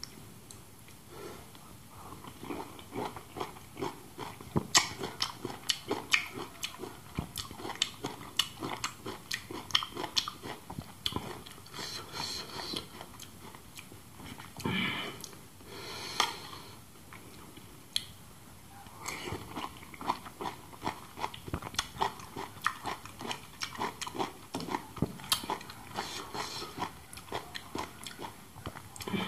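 Close-up chewing and lip-smacking of a juicy pink pomelo-pulp mash, a rapid run of wet smacks and clicks with a few short quieter gaps.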